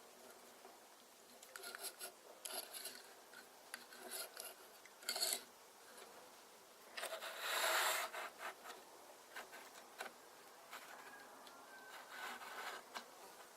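Plastic building-brick pieces being handled and fitted together: scattered light clicks and rubbing, with a louder rustle lasting about a second around seven seconds in.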